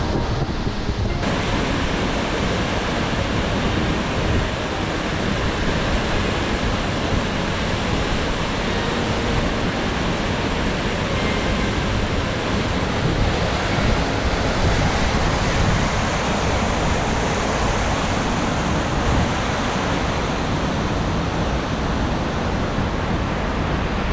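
Steady, loud rush of a large waterfall's falling water, with no let-up.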